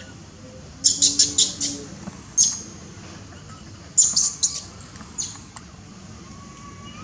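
Young long-tailed macaque crying: short, shrill squeals in quick runs of four or five, about a second in and again about four seconds in, with single squeals between. This is a juvenile crying for milk and grooming.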